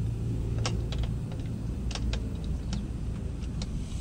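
A scattering of light clicks and taps, about eight, as the plastic and aluminium parts of a kayak cart's frame and axle are handled and fitted together, over a steady low background rumble.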